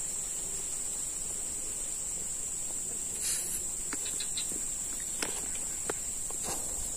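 Steady high-pitched drone of insects in the surrounding grass, with a few faint clicks and rustles from the angler handling his line and the plants.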